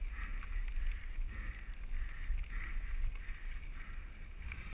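Mountain bike rolling along a gravel track, its tyres crunching on the gravel in a rustle that swells and fades about twice a second, over a steady low rumble of wind on the bike-mounted camera's microphone.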